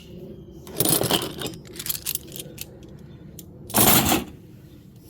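Metal hand tools clinking and clattering against one another as they are handled and set down. There is a louder clatter about a second in, light clicks after it, and another loud clatter near four seconds in.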